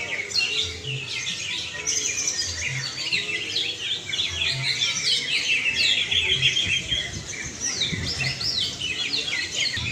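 Many caged green leafbirds (cucak ijo) singing at once in competition: a dense, unbroken tangle of fast, high chirps and trills overlapping one another.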